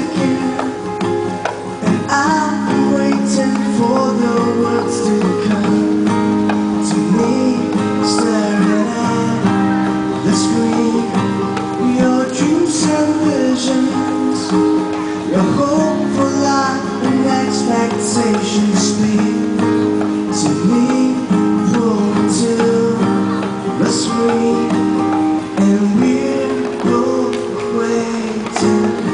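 Live acoustic song: an acoustic guitar strummed steadily while a man sings into a microphone, with a small hand drum struck along in time.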